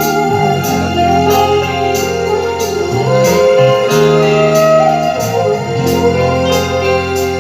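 Keyboard-led music with sustained organ-like chords, a bass line and a steady beat, played loud through a line array PA system.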